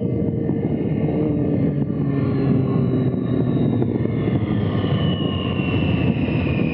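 2012 Triumph Street Triple R's 675 cc inline-three engine running under way, heard through a tank-mounted camera with heavy wind and road noise; its pitch eases down slowly near the end.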